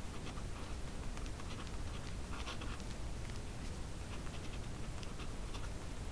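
A pen writing on paper: short, irregular scratches of the tip as words are written, over a steady low hum.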